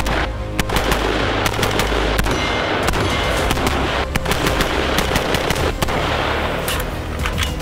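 Sons of Liberty Gun Works M4 EXO2 AR-15 rifle firing rapid, irregular strings of shots, several a second.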